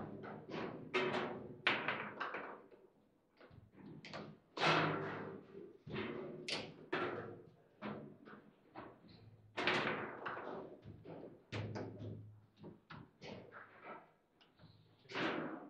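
Foosball table in play: irregular sharp knocks and thuds of the ball striking the plastic figures and the table walls, and of the rods being jerked, each with a short ringing tail from the table's body.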